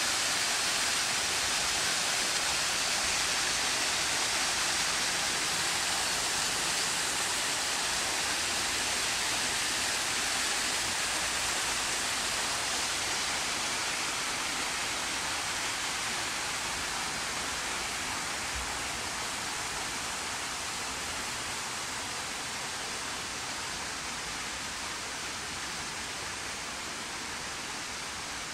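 Small cascade waterfall pouring over rocks into a pond: a steady, even rush of falling water that grows slightly fainter toward the end.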